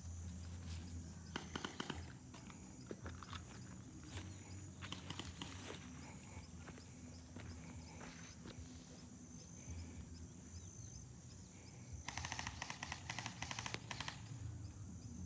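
Airsoft guns firing at a distance in short bursts of rapid clicking shots, the longest burst about twelve seconds in and lasting nearly two seconds.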